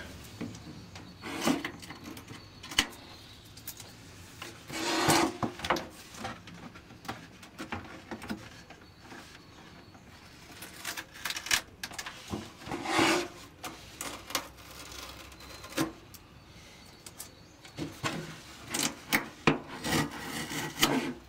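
Tape being peeled off a model aircraft wing in several pulls of about a second each, with knocks and rubbing as the wing is handled and turned over on the bench between pulls.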